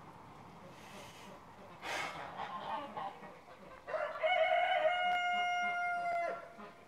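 A rooster crowing about four seconds in, its last note held steady for over two seconds.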